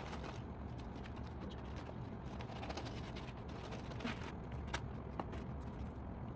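Gift-wrapping paper being handled and folded around a small present, with a few soft crinkles and clicks, over a steady low hum.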